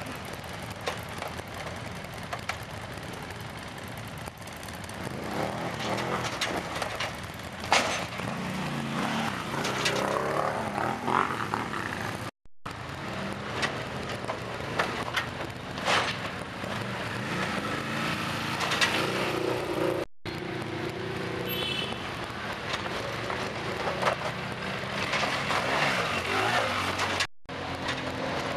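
Quad bike engines revving up and down under load as the machines climb over a metal ramp obstacle, with sharp knocks now and then. The sound cuts off abruptly three times for an instant.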